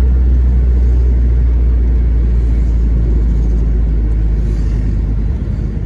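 Steady low rumble of a car driving, its engine and road noise heard from inside the cabin; the low hum shifts slightly near the end.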